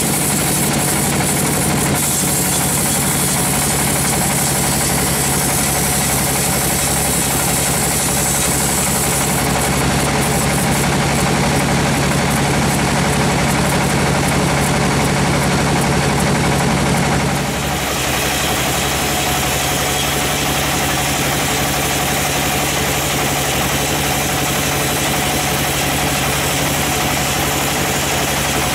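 Large sawmill band saw running steadily as its blade rips lengthwise through a teak log. About two-thirds of the way through, the sound changes abruptly: a steady low hum drops out and the hiss shifts.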